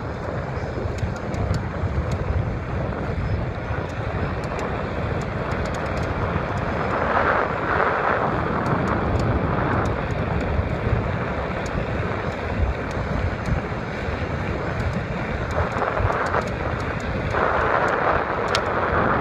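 Wind buffeting the microphone and tyre and road noise from an electric bike being ridden at speed, with scattered faint clicks and a few louder gusts.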